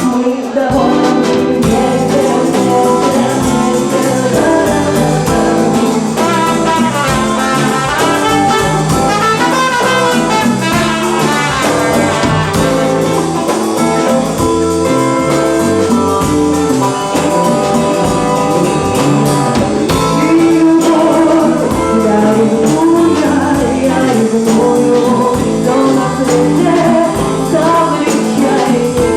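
A band playing a song with a singer over instruments, loud and continuous.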